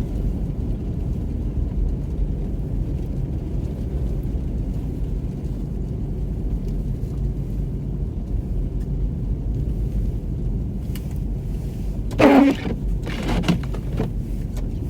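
Steady low rumble of a car heard from inside the cabin as it drives slowly over a snow-covered road. Near the end come two short, louder pitched sounds a second or so apart.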